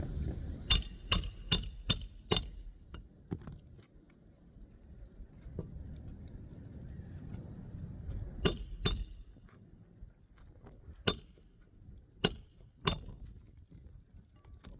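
Hammer driving roofing nails through an asphalt shingle, each blow giving a sharp clink with a brief high metallic ring. Five quick strikes in the first two or so seconds, a pause, then two strikes, and three more spread out near the end.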